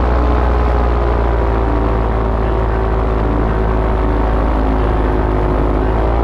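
Paramotor engine and propeller running steadily at a constant pitch, which shifts slightly near the end.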